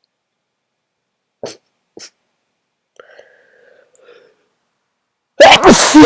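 Two short, faint catches of breath and a quiet held voiced 'ahh', then near the end one loud explosive human sneeze whose voice falls in pitch.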